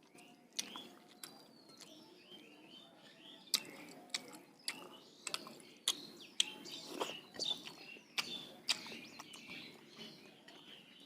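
Close-up eating sounds: chewing with sharp, irregular mouth clicks and smacks, several a second. Birds chirp in the background.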